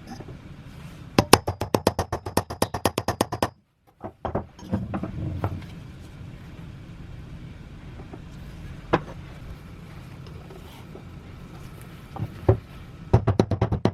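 Rapid, even strokes, about nine a second, in one run about a second in and another near the end, with scattered single knocks and handling clatter between, typical of scrubbing or scraping by hand on the rusty lamp.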